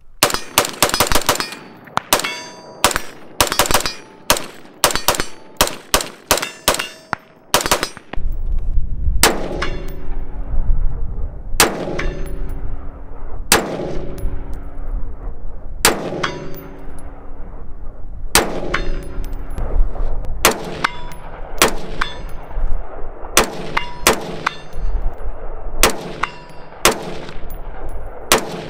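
A 10.5-inch 5.56 AR pistol firing, with hit steel targets ringing. For about the first eight seconds it fires quickly, several shots a second. After that the shots come singly, about every two seconds, each followed by a short ring, over a low rumble.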